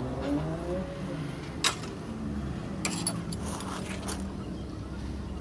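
A few light metallic clicks and taps as a wire fan guard is handled on a steel bicycle rim, the sharpest about a second and a half in, over a steady low rumble.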